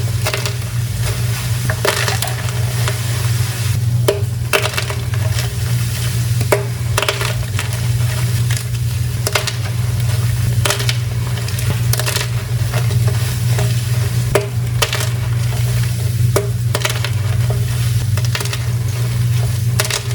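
Dyed gym chalk crunching and crumbling as it is crushed, in a run of irregular crisp crunches over a steady low hum.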